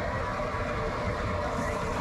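Whole battered bananas deep-frying in a large wok of hot oil: a steady, dense sizzle.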